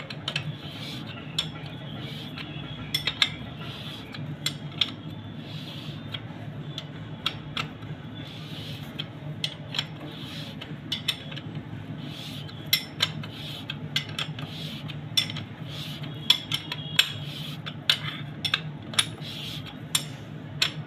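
Many irregular, sharp metallic clinks of tools and metal parts being handled during engine reassembly, over a steady low hum.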